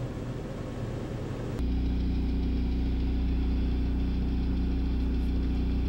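A loud, steady low machine hum starts abruptly about a second and a half in and holds at an even pitch, over faint low background noise before it.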